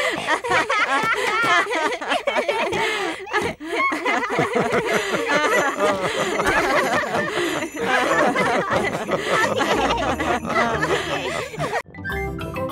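Several cartoon voices laughing together heartily, high children's voices and lower adult voices, for almost the whole stretch. Near the end the laughter stops abruptly and a cheerful theme tune begins.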